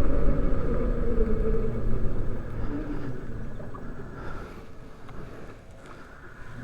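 Wind and road noise from riding a 2020 Zero DSR electric motorcycle, with a faint whine from the drivetrain. It grows quieter as the bike slows, lowest about five to six seconds in, then starts to pick up again.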